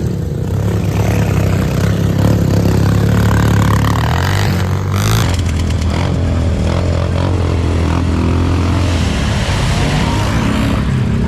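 Small off-road vehicle engine running loudly, its note shifting about five seconds in and changing again near nine seconds.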